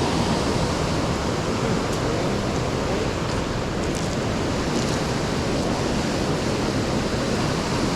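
Steady rushing of water pouring over the waterfall on the river, a constant even roar with no break.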